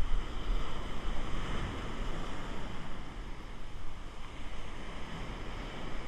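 Surf breaking and washing up the beach, with wind buffeting the microphone.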